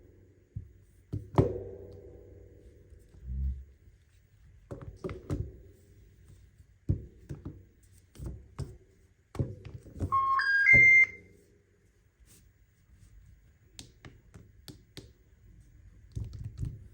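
A smartphone being handled: scattered knocks and taps against it. About ten seconds in comes a short rising three-note electronic chime.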